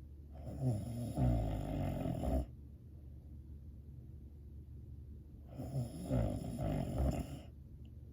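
A sleeping person snoring: two snores, each about two seconds long, some five seconds apart.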